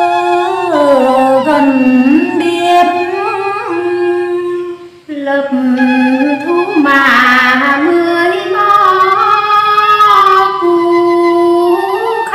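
A woman singing a Tày phong slư folk song unaccompanied: one slow, ornamented melody line with long held notes, breaking off briefly about five seconds in.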